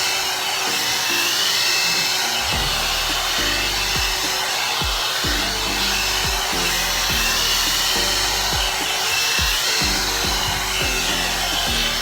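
One-step hot air brush (hair dryer and styler) blowing steadily, a loud hiss of air, with background music that has a steady bass beat coming in about two and a half seconds in.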